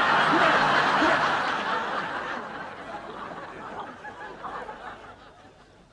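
Studio audience laughing, loud at first and dying away over several seconds.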